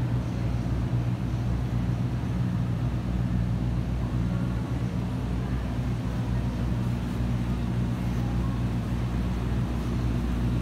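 Steady low hum of workshop machinery in a steel fabrication shop, running evenly with no distinct knocks or bangs.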